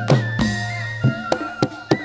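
Live kuda kepang accompaniment music: drums struck in a quick, uneven rhythm, some strokes with a falling pitch, under a held melody line with small turns in pitch.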